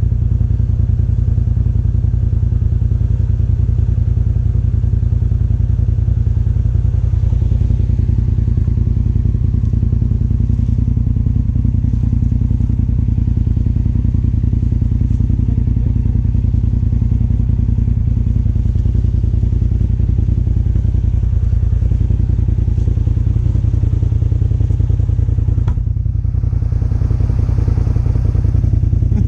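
Side-by-side UTV engine idling steadily, close by.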